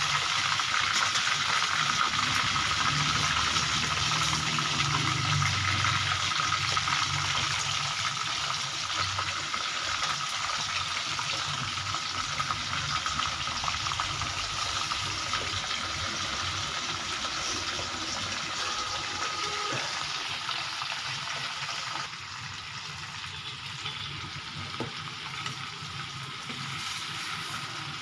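Chicken leg pieces sizzling as they fry in hot oil, a steady sizzle that slowly fades and drops a little about three quarters of the way through.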